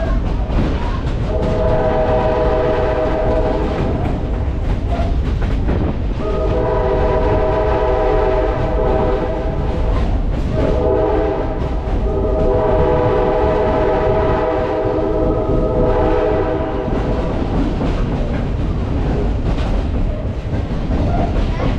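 Locomotive horn sounding three long blasts, each a chord of several tones, the last one longest, over the steady rumble and clatter of the train rolling on the rails.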